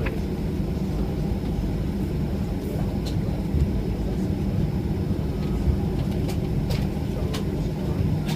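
Steady low rumble inside the cabin of a Boeing 737-800 with its engines running, with a few faint clicks about halfway through and again near the end.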